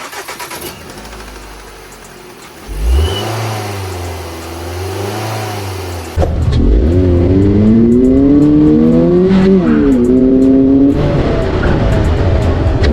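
Car engine starting about three seconds in and revving up and down. After an abrupt cut about six seconds in it runs louder, with its pitch climbing and falling through several revs.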